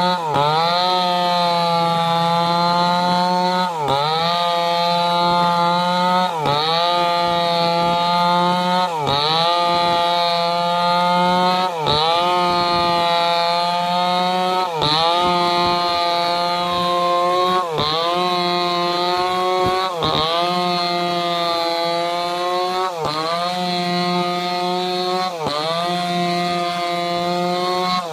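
Stihl chainsaw running at high revs while ripping a log lengthwise. Its engine note dips briefly and recovers about every three seconds as the chain bogs under load in the cut.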